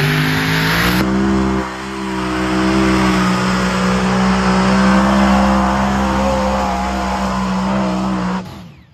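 Heavy modified pulling tractor's engines at full throttle under load, pulling the weight sled. The pitch climbs in the first second, then holds a loud, steady tone that creeps slightly higher before cutting off abruptly near the end.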